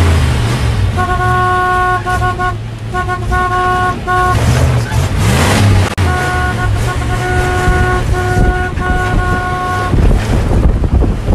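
Vehicle horn honking in two stretches of broken blasts, each a few seconds long, over the low rumble and wind rush of a vehicle driving fast across sand.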